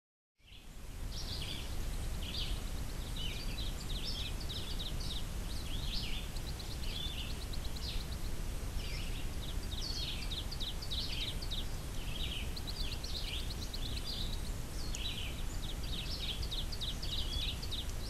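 Birds chirping and trilling continuously in many short calls over a steady low outdoor rumble.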